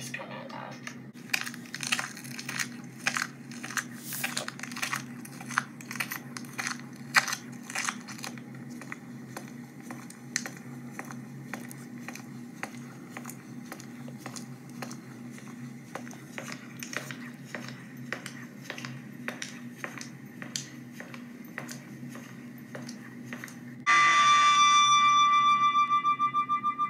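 A steady low electronic drone with scattered crackling clicks, then, near the end, a loud rapidly pulsing electronic tone cuts in suddenly and fades slightly: a sci-fi sound effect for a flying saucer.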